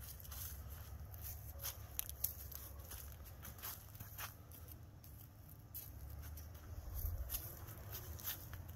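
Footsteps on dry leaf litter and wood mulch, faint irregular crackles, over a low rumble of wind or handling noise on the microphone.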